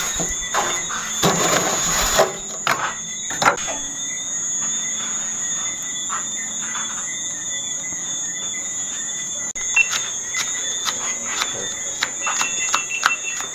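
A steady high-pitched whine with scattered clicks, and rustling and a few sharp knocks in the first few seconds. Near the end, a quick run of knife strokes on a cutting board.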